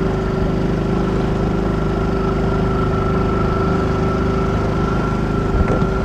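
Small outboard motor on a sailboat's transom running steadily at one even pitch.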